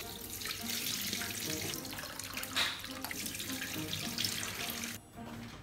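Water running from a kitchen tap into a stainless steel sink and splashing in a plastic colander bowl, with a steady hiss that stops about five seconds in.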